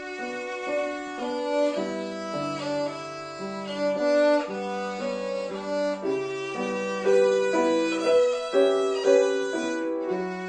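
Violin playing a bowed melody, with piano accompaniment sounding lower notes underneath.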